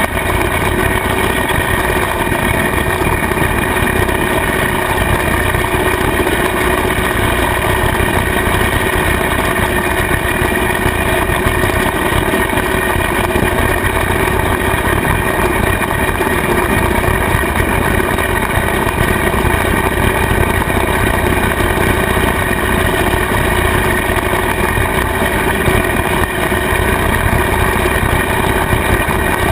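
Kubota tractor's diesel engine running steadily while it drives a rotary cutter (bush hog) that is mowing grass: a constant machinery drone with a few steady whining tones over it.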